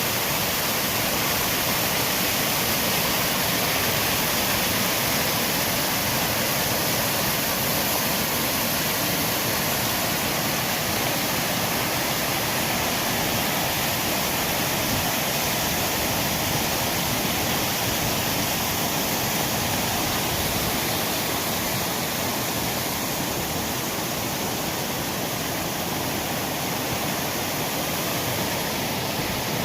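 Waterfall: falling water making a steady, loud, even rush.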